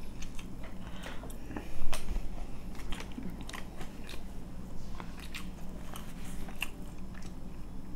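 Burger being chewed close to the microphone: crunchy bites and munching, with the loudest crunch about two seconds in.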